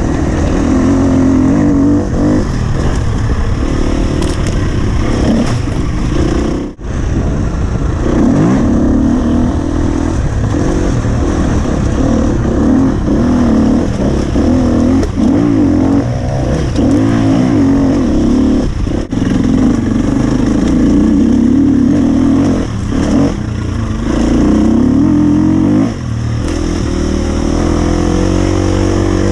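Husqvarna FE 250's 250 cc four-stroke single-cylinder engine revving up and down as the enduro bike is ridden, the pitch climbing and falling with the throttle. The sound cuts out for an instant about a quarter of the way through.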